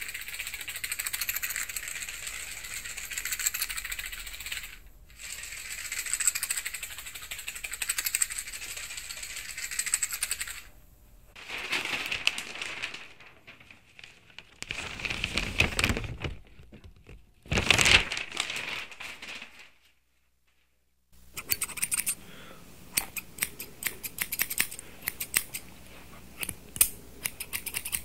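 Holophonic (binaural) demonstration sound effects: a rattling hiss for about ten seconds, then three separate swishing bursts, a second's silence, and a run of sharp irregular clicks near the end.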